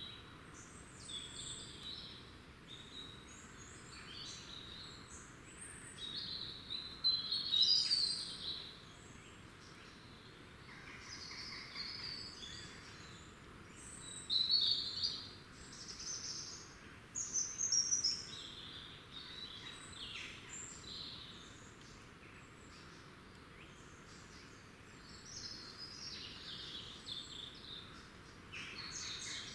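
Woodland songbirds chirping and singing: short high calls and song phrases scattered throughout, with the loudest bursts about 7, 14 and 17 seconds in.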